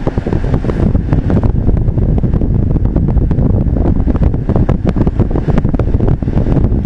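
Road and engine noise of a moving car heard inside the cabin: a loud steady low rumble with frequent small clicks and knocks throughout.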